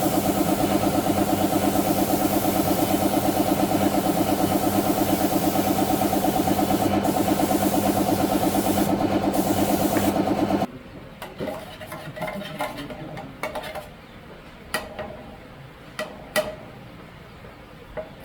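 A motor running with a steady, rapid pulse, cutting off abruptly about ten seconds in. Light clicks and a few sharp metallic knocks follow.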